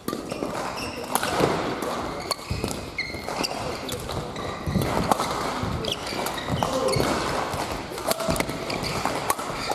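Badminton doubles rally: rackets hitting the shuttlecock in repeated sharp cracks, court shoes squeaking on the floor, and feet thudding as the players jump and lunge.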